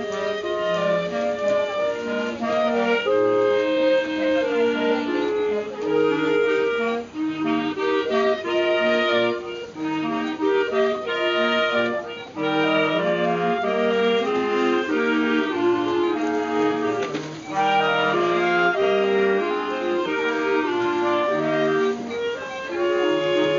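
A clarinet choir, including a bass clarinet, playing a piece in several-part harmony, with a few brief breaks between phrases.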